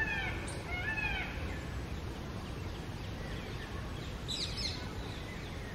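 Indian peacock calling: two wailing, arched cries in the first second and a half. A brief higher-pitched bird call follows about four and a half seconds in.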